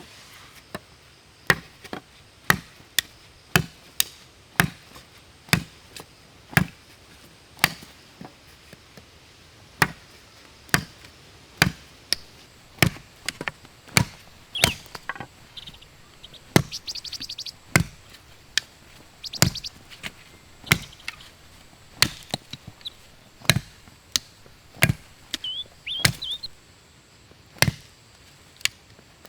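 Wood being chopped with a blade, one sharp strike after another at roughly one to two a second, with short pauses between runs of blows.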